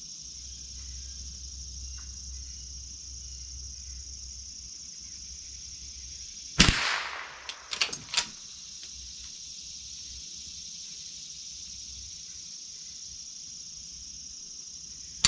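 A single shot from a Remington Model 12 .22 rimfire pump-action rifle about six and a half seconds in, followed within a second or two by a few quick clicks of the slide action being worked to eject the empty case.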